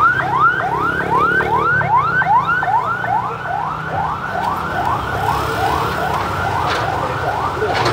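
Electronic alarm sounding a fast, even series of rising whoops, about two a second, over a low traffic hum.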